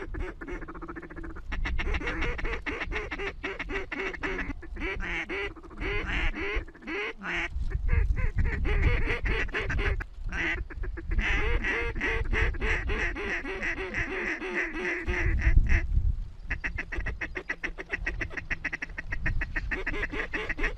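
A large flock of waterfowl calling overhead in a dense, continuous chorus of short calls. A low rumble swells twice, once in the middle and once near the end.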